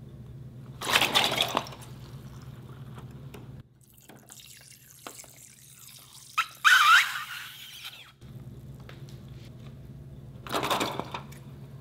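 Water mixed with glycerin pouring out of a cut rubber balloon and splashing into a glass bowl, loudest about seven seconds in. Short rustles of the balloon's rubber being handled about a second in and again near the end, over a low steady hum.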